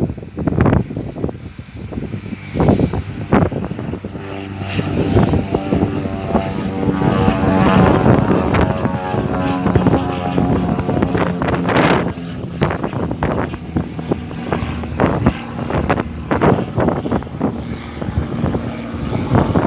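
Britten-Norman Islander twin-engine propeller plane climbing out after takeoff and passing overhead: its engine and propeller drone swells over the first few seconds, is loudest around the middle, then fades as it flies away. Gusty thumps hit the microphone throughout.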